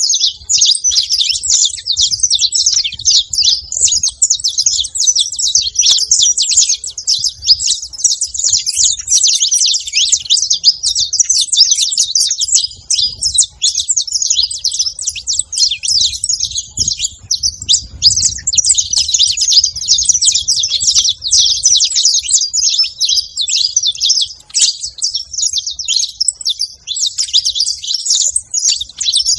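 Saffron finch (canário-da-terra) chirping and singing in a dense, unbroken run of quick high chirps.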